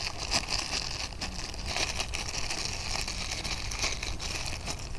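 Plastic packaging crinkling and crackling continuously as a squishy toy is worked out of its bag.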